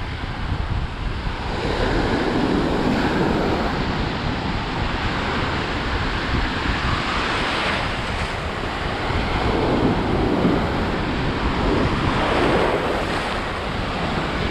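Atlantic Ocean surf washing in and out around the microphone, swelling louder twice, with wind buffeting the microphone.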